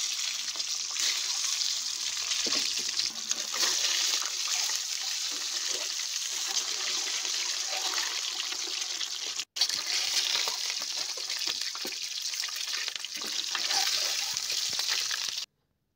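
Whole boiled eggs sizzling in hot cooking oil in a kadai: a steady frying hiss with small crackles and spatters. It drops out for an instant about halfway through and cuts off abruptly just before the end.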